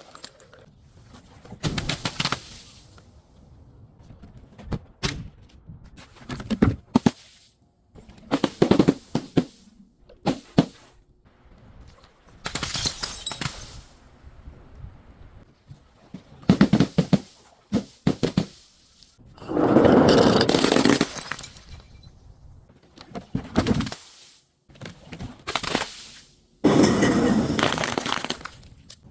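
Brittle things being crushed one after another: a series of crunching, cracking bursts a second or few apart, with two longer, louder crunches, one in the middle and one near the end.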